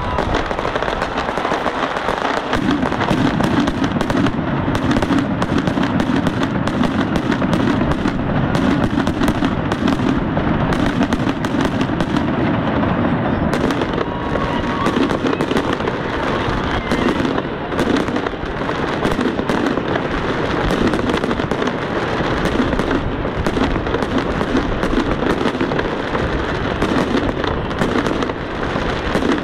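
Fireworks going off in a dense, continuous barrage of bangs and crackles.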